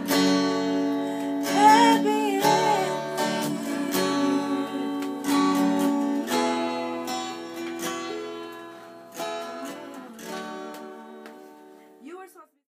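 Acoustic guitar strumming chords, with a voice briefly singing along about two seconds in. The playing grows quieter over the second half and stops just before the end.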